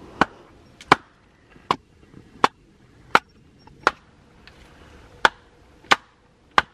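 Batoning: a wooden stick striking the spine of a Buck Selkirk fixed-blade knife, driving it down through a small stake to split it. About nine sharp knocks, roughly one every 0.7 s, with a short pause a little after halfway.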